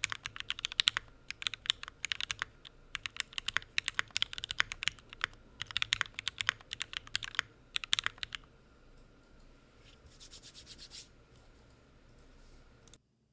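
Rapid typing on a gasket-mounted, aluminium-cased 60% custom mechanical keyboard with Tealios V2 linear switches and GMK keycaps: quick runs of keystrokes with the occasional louder one. The typing thins out about eight seconds in, leaving only a few faint taps.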